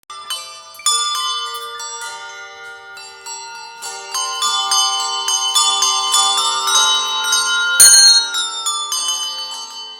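Handbell choir playing a piece: many bells struck in turn and together, their notes ringing on and overlapping. About eight seconds in comes one loud, sharp strike, and the notes fade away near the end.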